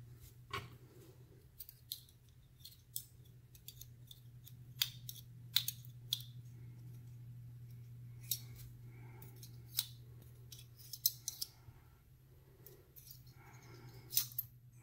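Irregular small metallic clicks and taps of a brass Euro-profile lock cylinder being handled, its parts knocking against each other and against tweezers while the plug is worked back into the housing behind a shim.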